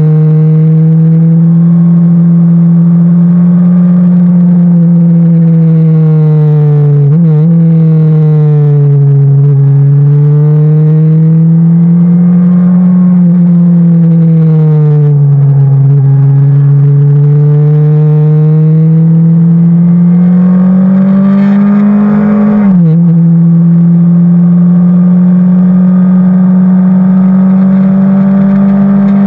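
Motorcycle engine running hard on a winding road, its note rising and falling with the throttle through the bends. Two brief breaks in the note come about a quarter of the way in and again near three quarters through.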